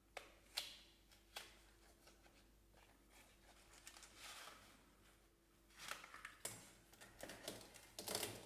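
Faint handling noises: scattered light clicks and short rustles as the plastic mechanical pencils and their packaging are picked up and turned over, with a cluster of clicks near the end.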